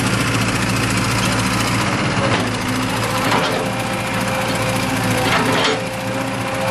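Backhoe excavator's diesel engine running steadily under load.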